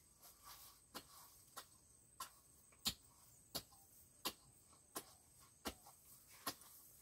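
Faint, regular strikes of a hand rake chopping into garden soil, roughly three blows every two seconds, breaking up a vegetable bed to mix in manure and rice husk.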